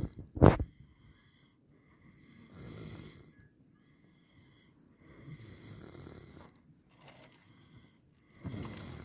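Snoring: slow, rough breaths every two to three seconds, separated by quiet pauses. About half a second in there is a short, much louder burst.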